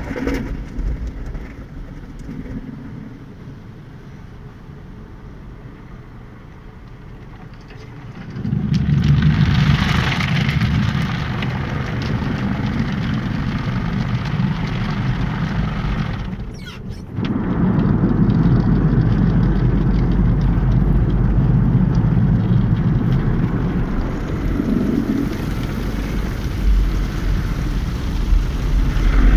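Automatic tunnel car wash heard from inside the car: water spray and rotating brushes beating on the body and windscreen. The noise is fairly soft at first and jumps to a loud rumble about eight seconds in. It drops out for a moment about halfway through, then goes on loud.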